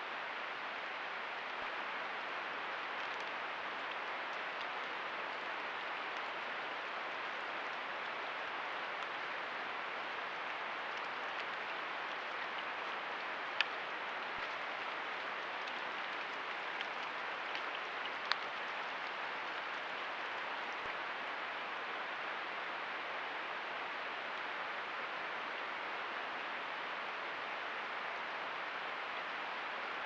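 Steady, even rushing noise, with a few faint sharp ticks about halfway through.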